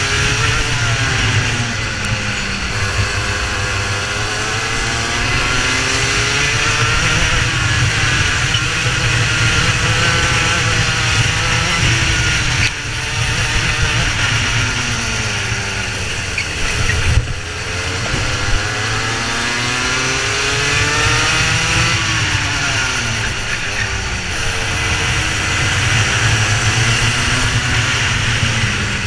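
Several racing kart engines under race load, their pitch rising and falling over and over in overlapping sweeps as the karts accelerate and brake through corners, over a steady low rumble.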